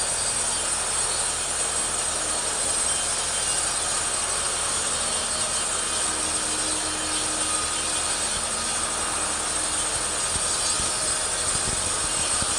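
Petrol two-stroke chainsaw running steadily under load, ripping lengthwise through a teak log.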